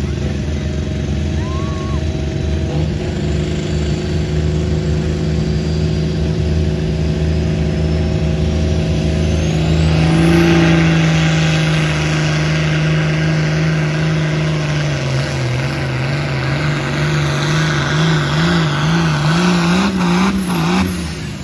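Turbocharged diesel engine of a pulling tractor running hard, with a turbo whine that rises and then holds high. About halfway it gets louder as the tractor pulls the weight sled under load, and near the end the engine note sags and wavers up and down.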